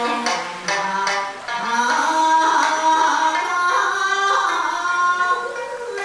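Background music: a melody that opens with a few plucked notes, then moves to long, wavering held notes.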